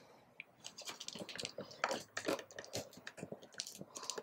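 Soft, scattered clicks and rustles of cardboard packaging and paper items being handled and lifted out of a box.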